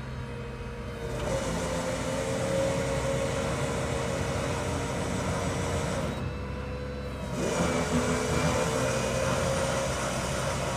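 Hunke 6T pump hoist's two-speed motor running in its high-speed setting, a steady whine as it winds the hook and cable up. It stops about six seconds in, then starts again a second later as the line is let back down. A truck engine runs steadily underneath.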